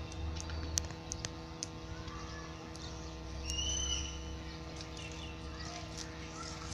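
A single short, flat whistled bird call about three and a half seconds in, over a steady low rumble and scattered light clicks.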